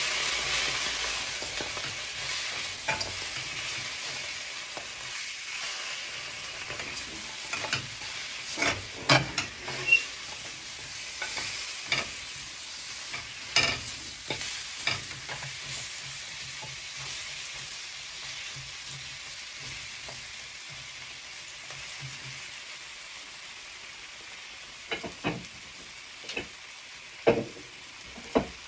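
Sauce-coated chicken wings sizzling in a frying pan while a spatula stirs them, with irregular knocks and scrapes of the spatula against the pan. The sizzle slowly fades.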